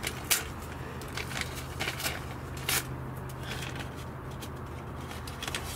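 Paper seed packet rustling and crinkling in the hands as broad bean seeds are fished out of it: a series of short, irregular crackles over a steady low hum.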